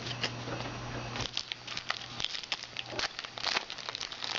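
Trading card packs and cards being handled. A foil wrapper crinkles while cards are thumbed through in quick, irregular flicks and rustles.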